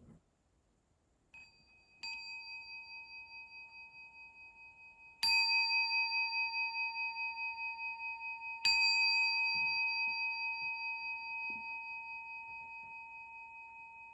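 Meditation bell struck three times, about three seconds apart, after a light first tap, each stroke ringing on long with a wavering tone that slowly dies away, sounding the end of the meditation session.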